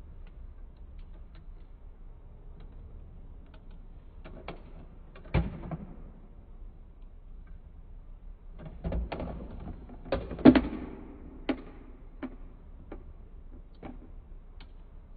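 Hard plastic clicks and knocks from a toy recycling truck as its bin-lifting arm and toy bins are handled. Scattered single clicks, a louder knock about five seconds in, and a busier run of clatter from about nine to eleven seconds in.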